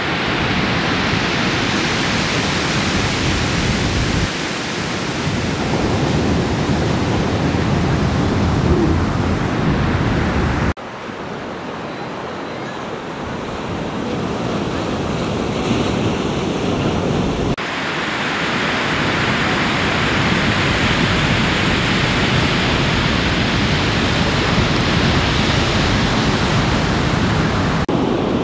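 Ocean waves breaking and whitewater rushing, a steady noise with wind on the microphone adding low rumble. The level and tone shift abruptly several times.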